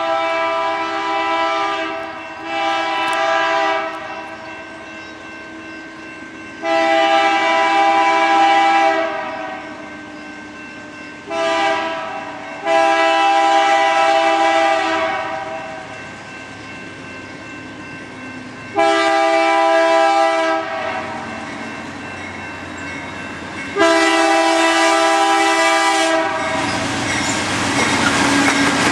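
BNSF diesel freight locomotive's multi-chime air horn blowing a series of blasts, mostly two to three seconds long with one short blast about eleven seconds in: a grade-crossing warning. Near the end the rumble and clatter of the locomotive and train on the rails grows loud as it passes close by.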